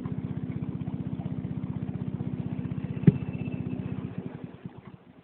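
A small engine runs with a steady, rapid put-put, then slows and dies away about four seconds in. There is one sharp knock about three seconds in.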